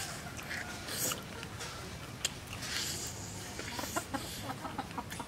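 Chickens clucking in the background, with the small clicks and crunches of two people tearing apart and chewing crispy roasted mouse meat by hand, the crunches thicker in the second half.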